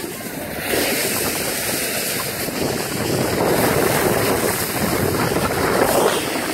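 Rushing noise of skiing downhill: wind buffeting the phone microphone and skis hissing over the snow. It swells about a second in and is loudest in the second half.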